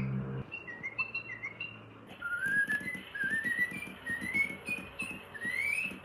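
Little Live Pets toy bird tweeting: short high chirps, then from about two seconds in a run of rising whistled glides, one after another.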